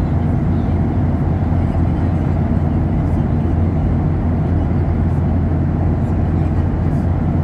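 Steady low cabin drone of a Boeing 737-800 in cruise, its CFM56-7B turbofan engines and the airflow over the fuselage heard from a window seat inside the cabin.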